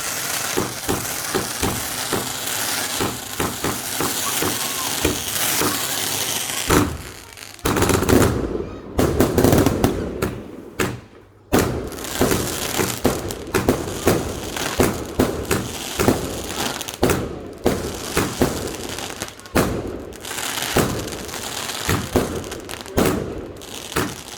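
Fireworks display finale: a dense barrage of bangs and crackle going off in quick succession, with two short lulls about seven and eleven seconds in.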